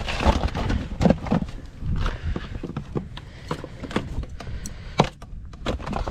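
Hollow plastic duck decoys knocking and clattering together in irregular bursts as they are handled and packed into a decoy bag.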